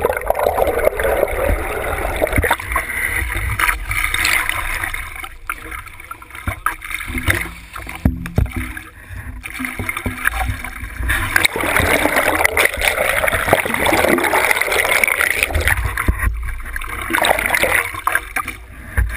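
Seawater rushing, gurgling and splashing against a camera's waterproof housing as it goes under and breaks the surface in choppy water beside a boat's hull, with a low rumble that comes and goes.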